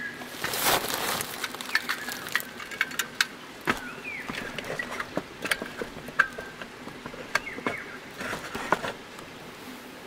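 Clicks and knocks of a portable butane camping stove and its gas canister being handled and fitted together on a wooden board, with a brief rustle of the groundsheet under a second in.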